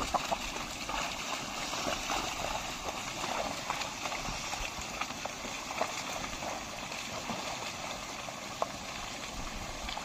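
A pair of oxen and a plough sloshing through a flooded, muddy field: a steady wash of splashing water with irregular squelches and splashes from hooves and feet.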